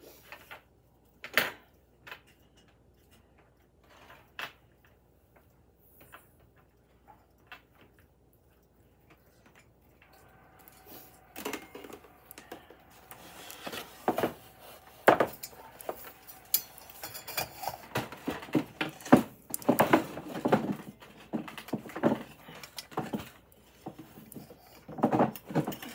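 Clatter of objects being handled and set down on a desk: scattered knocks and clicks, a few at first, then many more in quick succession from about ten seconds in.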